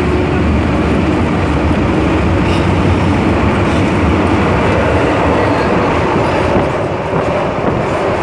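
MTR M-Train heard from inside the passenger car: a steady rumble of wheels and traction equipment as the train runs.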